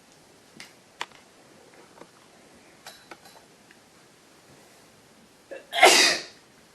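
A person with a head cold sneezing once, loudly, near the end, with a short catch of breath just before it. A few faint clicks come earlier.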